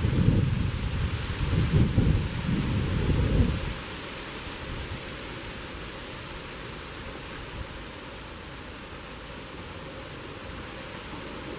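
Wind buffeting the microphone: a loud, gusty low rumble for the first three to four seconds, then it drops suddenly to a steady, quieter hiss.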